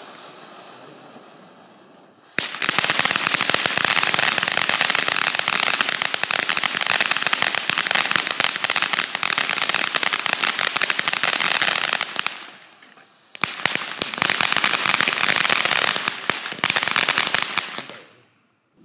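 8-inch Volcano Cone firework fountain burning, starting with a softer hiss. About two seconds in it bursts into loud, dense crackling. The crackling dips briefly around twelve seconds, resumes, and cuts off abruptly near the end as the fountain burns out.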